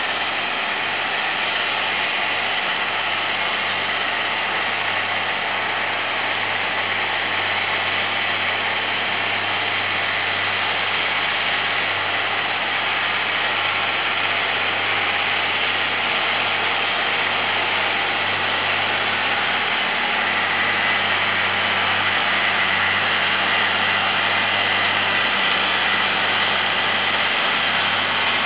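Massey Ferguson 6490 Dynashift tractor's six-cylinder diesel engine running steadily under load while pulling a mounted reversible plough through the soil. It grows slightly louder in the last third.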